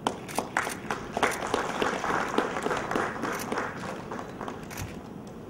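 Audience applauding, the clapping starting at once and dying away about four to five seconds in.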